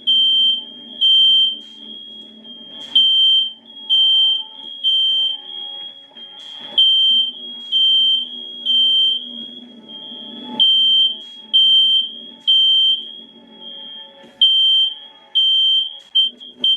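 Fire alarm sounding high-pitched beeps in repeating sets of three, each beep about half a second long with a pause between sets: the temporal-three evacuation signal.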